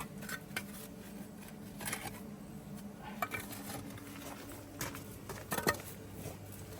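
Sporadic light clicks and knocks, a few close together about five and a half seconds in, over a low steady hum.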